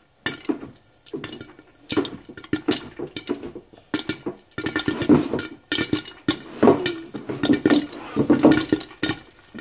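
Popcorn kernels popping in a pot under a glass lid: a run of irregular sharp pops and clinks against the lid and pot, sparse at first and coming thick and fast from about two seconds in.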